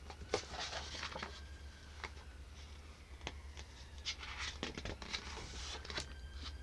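Faint handling of a hardback picture book as its cover is opened and pages are turned by hand: soft paper rustles and a scatter of small taps and clicks. A low steady hum runs underneath.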